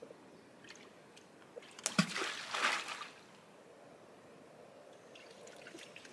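Fish bait thrown into calm open water, landing with one sharp splash about two seconds in, followed by about a second of spattering water.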